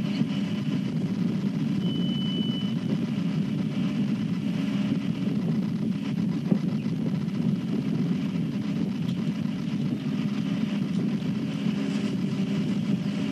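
A vehicle engine running steadily, a low even drone picked up by a railway webcam's outdoor microphone. There is a short high chirp about two seconds in.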